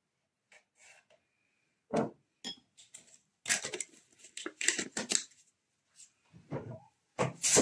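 Metal spoon clinking and scraping against a ceramic bowl while a dollop of a thick white ingredient is spooned onto marinating chicken. There is a single thump about two seconds in, then a busy run of scrapes and clinks.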